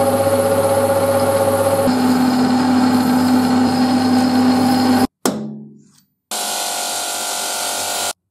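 Metal lathe running steadily while a small steel part is turned with a cutting tool and then filed as it spins, with an added high tone from the cut for about the first two seconds. The sound stops abruptly about five seconds in and a short sound fades away. After a brief gap, a bench buffing wheel runs steadily and cuts off sharply near the end.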